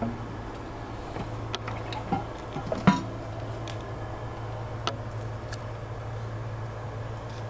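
A few light clicks and knocks as the lid of a German Pool halogen cooking pot is handled and set onto its glass bowl, the loudest about three seconds in, over a steady low hum.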